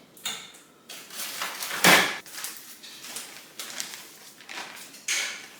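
Kitchen clatter: knocks and thuds of things being handled and set down, the loudest a single heavy thump about two seconds in and another sharp knock near the end.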